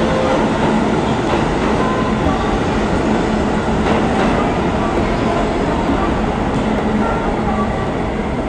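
New York City subway train running on the rails: a steady, loud rumble with a few faint clicks from the wheels.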